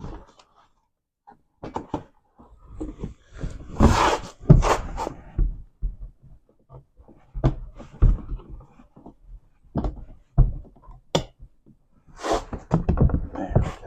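Scattered knocks, clicks and scraping of parts being handled and fitted into a car door during window regulator work, busiest about four to five seconds in and again near the end.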